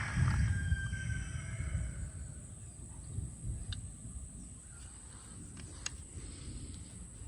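Gusty wind buffeting the microphone as a storm's wind front approaches. It is strongest in the first second or two, then eases. A bird gives a drawn-out call, falling slightly in pitch, over the first two seconds.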